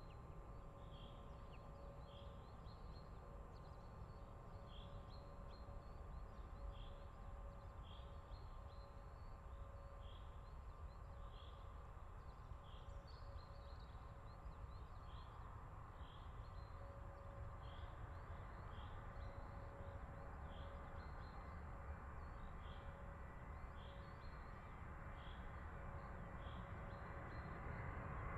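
Distant Antonov An-124-100 on final approach, its four turbofans a faint steady whine and rumble that slowly grows louder toward the end. A bird gives a short high chirp about once a second, over a low wind rumble.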